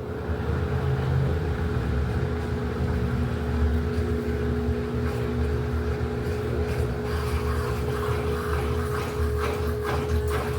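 Electrolux LED14 14 kg washing machine running its quick programme: a steady motor hum over a low rumble, with a rhythmic swishing coming in during the second half.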